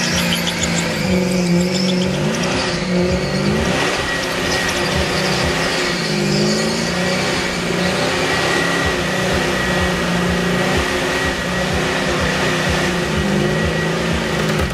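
Car engine held at high revs, its pitch rising and falling, with the tyres spinning in a smoky burnout and a steady high squeal over most of it.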